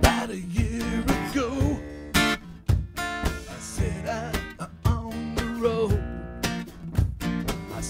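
Acoustic guitar strumming with a lead guitar line that bends its notes, over a steady stomped beat.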